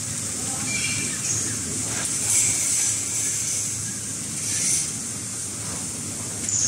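Toilet roll and kitchen towel film bundling and wrapping machine running, a steady mechanical noise broken by short hisses roughly every two seconds.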